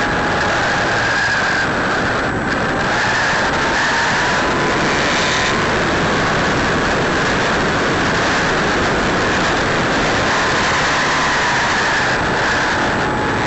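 Electric motor and propeller of an E-flite Apprentice RC trainer plane in flight, heard from a keychain camera on board: a steady whine over heavy wind rush. The pitch rises a little a few seconds in and drops back near the end.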